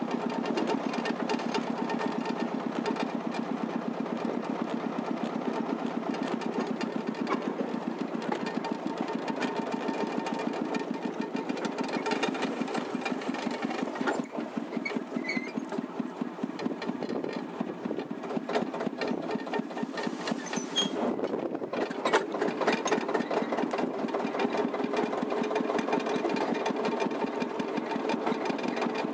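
Simplex narrow-gauge locomotive's engine running with a fast, even beat; its sound drops away for a few seconds around the middle and comes back louder after.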